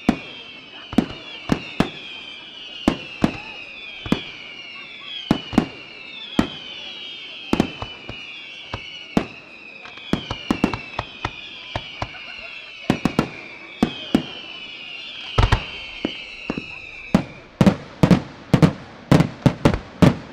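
Aerial fireworks display: a string of sharp bangs from bursting shells, with overlapping whistles falling in pitch about once a second. The whistles stop about 17 seconds in, and the bangs then come thicker and louder.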